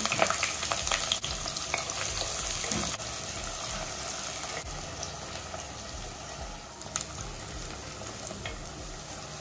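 Thinly sliced onion sizzling in hot oil with whole spices, starting suddenly as it goes in and loudest in the first seconds before settling to a steady frying hiss. It is stirred, with occasional sharp clicks.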